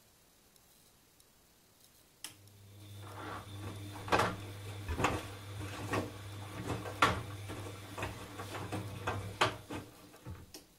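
Bosch Avantixx 8 front-loading washing machine on a wash cycle: after a quiet pause a click comes about two seconds in, then the drum motor hums while the drum turns, with wet laundry sloshing and thudding about once a second. The drum stops near the end.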